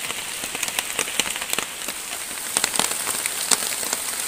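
Heavy rain falling steadily, with many sharp individual drops striking a surface.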